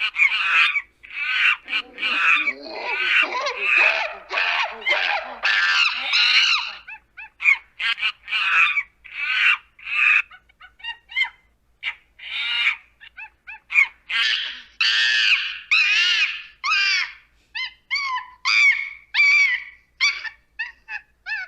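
Monkey screaming in a rapid string of short, high-pitched calls that bend in pitch. After about ten seconds the calls turn shorter and more spaced out.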